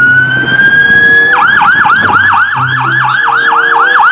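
Police siren: a loud rising wail that switches about a second in to a fast yelp of about five falling whoops a second.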